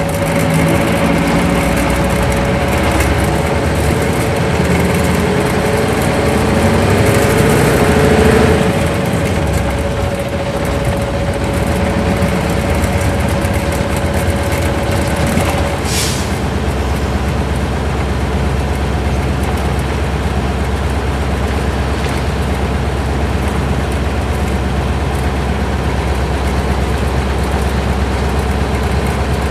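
Isuzu Cubic bus's V8 diesel engine heard from inside the moving bus. The revs rise over the first several seconds and fall away about eight seconds in. A short air hiss comes about halfway through, and the engine runs on steadier and lower after it.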